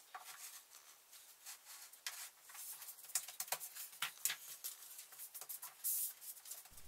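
Faint scattered taps and knocks, with a brief scuff near the end, as an 18 mm MDF spoilboard is handled, slid and pushed into place on a CNC router's plywood baseboard.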